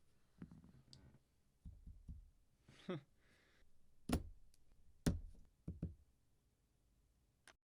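Keyboard parts being handled and set down during a custom mechanical keyboard build: sparse knocks and clicks, with a short rattling scrape, then two sharp knocks about a second apart, a softer pair and a last click near the end.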